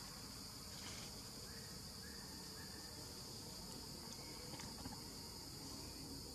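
Faint, steady high-pitched drone of insects, with a few faint clicks.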